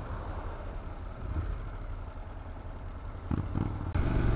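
Motorcycle engine running with a low rumble while riding. Near the end the engine note becomes louder and clearer, a steady hum.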